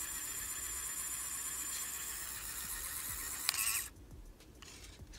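A 3D printing pen's small filament feed motor whirring steadily as it draws PLA filament in. It stops after about four seconds, with a click just before it cuts off.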